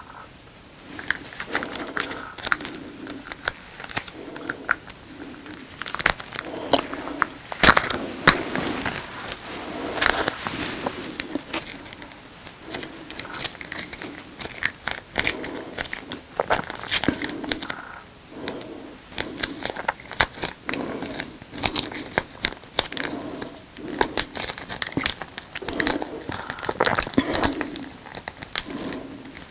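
Plastic packaging crinkling and crackling in irregular bursts as it is handled close to the microphone.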